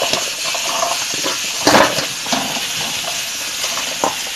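Diced zucchini tumbling from a metal bowl into a hot stainless frying pan, the cubes knocking and clattering onto the metal over a steady sizzle of sautéing seasoning, with a louder rush about two seconds in as a large batch drops.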